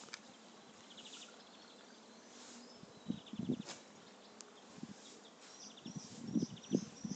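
Small birds calling: short buzzy trills of rapid pulses recur every second or two, and a run of quick, high chirps comes near the end, over irregular low rustling bursts.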